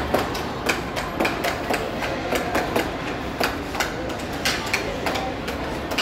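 Irregular sharp clacks and knocks, about three a second, over a steady background hiss.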